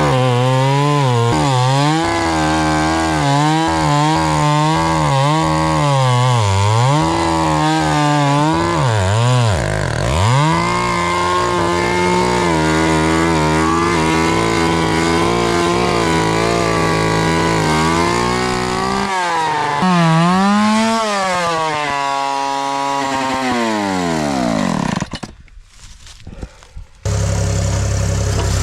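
Two-stroke chainsaw cutting into a fallen tree trunk. It revs up and down, holds at steady high revs through the cut for several seconds, revs again, then winds down and stops. After a brief lull, a lower, steady engine idle comes in near the end.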